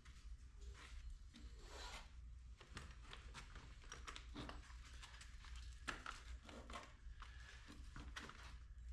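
Faint irregular rustling and light clicks, like small things being handled, over a low steady hum.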